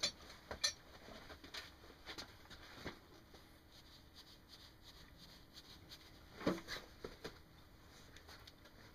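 Scattered light clicks and taps of hand tools and small parts being handled on a workbench, in small groups with a louder cluster about two-thirds of the way through.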